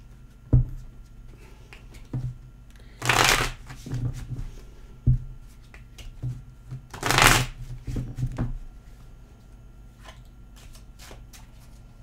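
A deck of tarot cards shuffled by hand, with two louder rushing shuffles about three and seven seconds in, a few low knocks, and light card clicks between.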